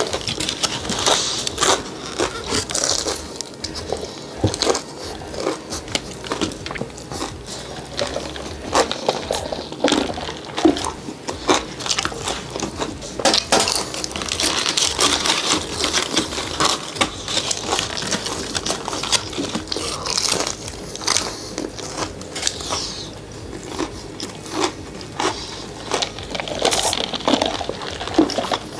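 Close-miked biting and chewing of fried chicken tenders dipped in sauce: crunching breading and many small wet mouth clicks, going on with little pause.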